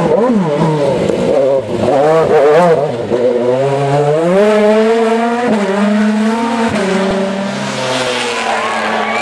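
Audi A4 DTM race car's V8 engine at full throttle, its pitch climbing and dropping back with each upshift as it pulls away. Near the end the note falls away to a quieter, more distant sound.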